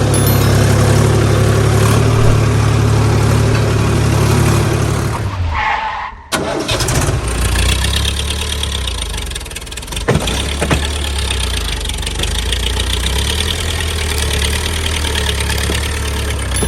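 Tractor or backhoe engine running steadily, dropping out briefly about six seconds in with a short rising whine, then coming back with a different, lower note.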